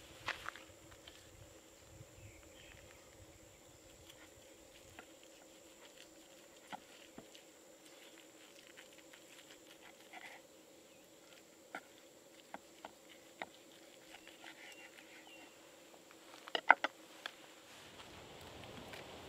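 Knife slicing a seared tomahawk steak on a wooden board: scattered faint ticks and crackles, with a short run of sharper clicks near the end, over a faint steady hum.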